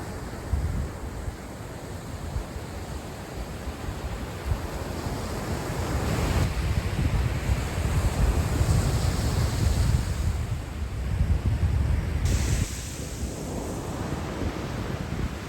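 Ocean surf breaking and washing on a sandy beach, with wind buffeting the microphone. The wash builds and is loudest from about six to twelve seconds in, then eases off.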